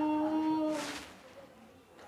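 A boy's voice holding one long, steady note of chanted Quran recitation, which stops under a second in and is followed by a quick intake of breath.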